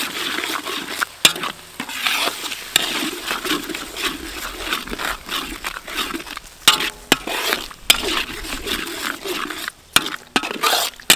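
Metal ladle stirring and scraping curry paste frying in oil in a wok: a steady sizzle broken by frequent, irregular sharp scrapes and clinks of metal on the pan.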